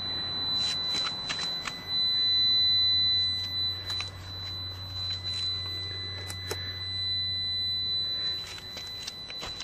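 Camera handling noise with scattered light clicks and knocks as the camera is moved about the car's dash and door opening. Under it runs a faint, steady, high-pitched whine with a low hum.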